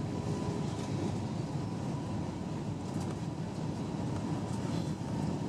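Steady cabin noise inside an Airbus A320-232 on approach: the deep roar of its IAE V2500 engines and the airflow over the airframe, with a faint steady whine.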